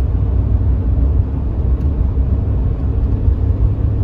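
Steady low rumble of road and engine noise inside the cabin of a moving van.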